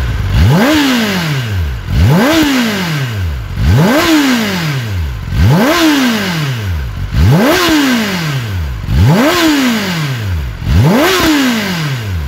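Kawasaki Ninja ZX-10R's inline-four engine on its stock exhaust, revved in quick throttle blips up to around 10,000 RPM. There are seven blips in a row, about one every second and a half to two seconds, each rising sharply and dropping back toward idle.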